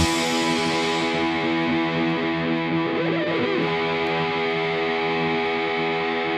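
Background music: guitar holding sustained chords at an even level, with no drums.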